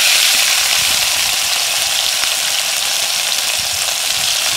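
Masala-coated fish pieces deep-frying in a pan of hot oil, a steady loud sizzle.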